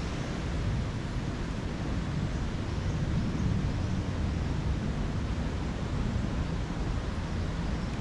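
Steady low rumble of wind buffeting the microphone, with no distinct events.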